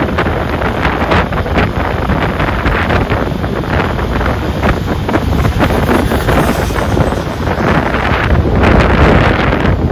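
Loud wind buffeting the camera microphone while riding in an open cycle rickshaw: a steady, gusting rush, heaviest in the low end, that covers the street sounds.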